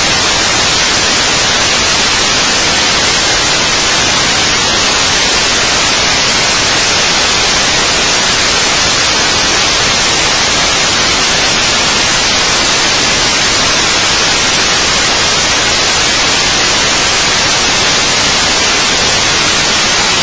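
Loud, steady static hiss with no change and no other sound standing out.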